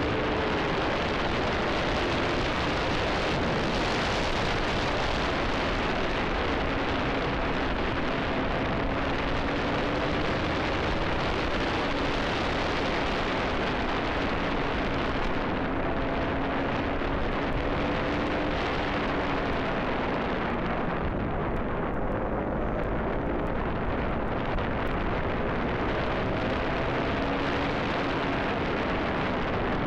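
Wind buffeting hard on the microphone of a motorcycle at speed, with the KTM Duke 200's single-cylinder engine faintly audible underneath, its pitch rising and falling with the throttle.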